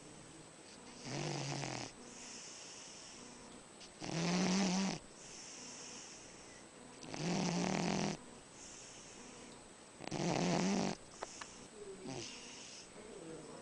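Dog snoring in its sleep: four loud snores about three seconds apart, each followed by a softer, breathy exhale, with the breathing turning lighter and less regular near the end.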